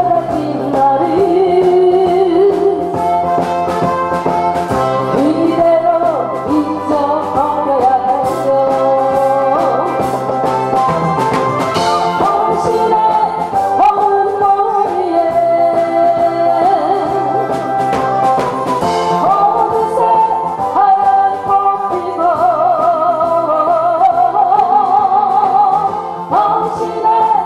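A woman singing a Korean song into a microphone over instrumental accompaniment, her held notes wavering in a wide vibrato.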